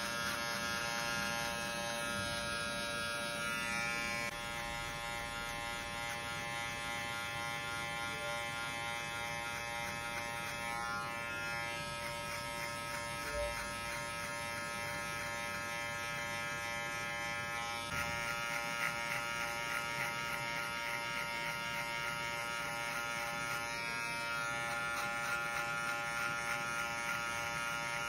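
Electric hair clipper buzzing steadily as it cuts short hair, its tone shifting slightly a couple of times.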